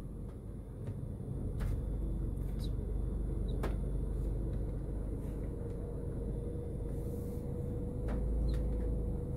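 Inside a car's cabin: steady low rumble of the engine and tyres as the car rolls slowly along a wet road, with a few scattered sharp ticks. A faint thin hum joins about a third of the way in.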